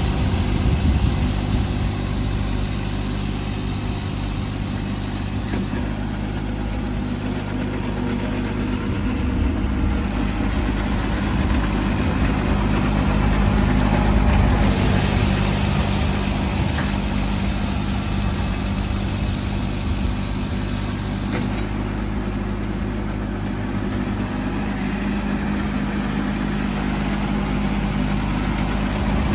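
John Deere garden tractor's engine running steadily while its front rotary broom sweeps thatch from the lawn: a steady engine hum under a brushing hiss that swells and fades a few times as the tractor moves.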